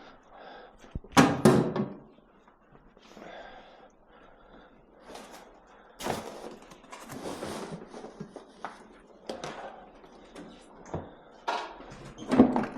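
Thuds and knocks of hard objects being handled and set down, with two loud thuds about a second in, a scraping, rummaging stretch around six to eight seconds in, and more clunks near the end.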